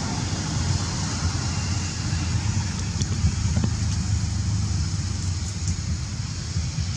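A steady low rumble under a constant high hiss, with a couple of faint clicks about halfway through.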